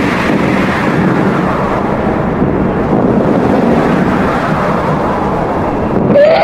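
Loud, steady rushing rumble of a storm-force wind sound effect, with no music under it. Music comes back in right at the end.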